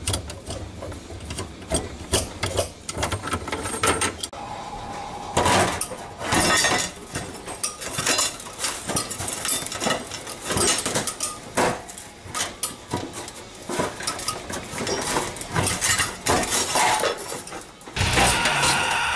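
Hand tools and metal faucet parts clicking, knocking and clinking against a stainless-steel kitchen sink as an old faucet is unscrewed from beneath and worked out of its holes, over a low hum for the first four seconds.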